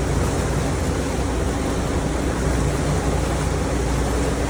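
Boat engine running steadily, with a low hum under a constant wash of wind and water noise.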